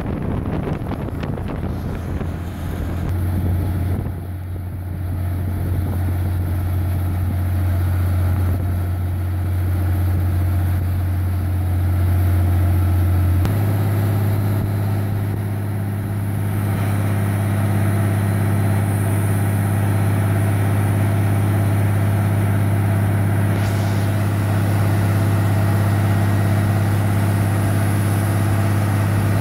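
Water-well drilling rig's engine running steadily while it turns the drill pipe. About 13 seconds in, the hum steps up slightly in pitch and stays there.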